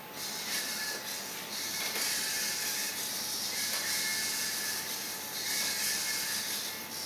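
Servo motors of small Bioloid walking robots whirring in on-off stretches of about a second each as the robots step about, a hiss with a thin whine in it.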